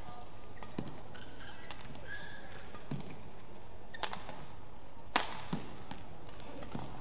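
Badminton rally: rackets striking a shuttlecock about six times, a sharp hit every second or so, the loudest just after five seconds in, with brief squeaks of court shoes between the hits.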